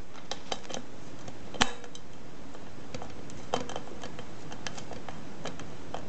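Screwdriver turning a small screw to fasten a blade bracket to a ceiling fan's motor housing: scattered light metallic clicks, with a louder clink about one and a half seconds in.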